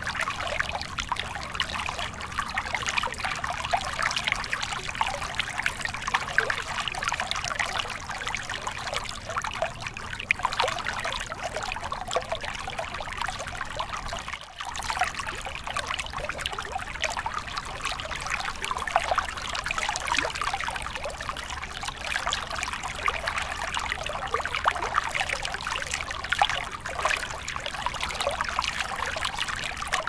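Shallow stream water spilling over rock ledges in a small cascade, heard close up as a steady trickling and splashing. It drops out for a moment about halfway through.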